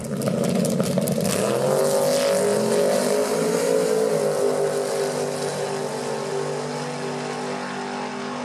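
Drag-racing cars' engines at full throttle launching off the line. The engine note rises over the first second or two, then holds steady and slowly fades as the cars run away down the strip.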